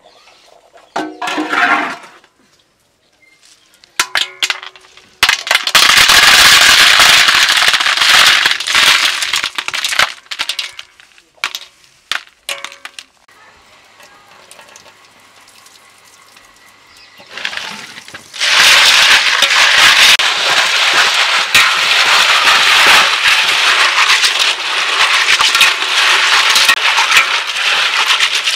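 Water from a hand pump pouring into an aluminium basin while hands scrub a mass of freshwater snails, the shells clattering against each other and the metal. There are two long stretches of this, separated by a quieter gap in the middle.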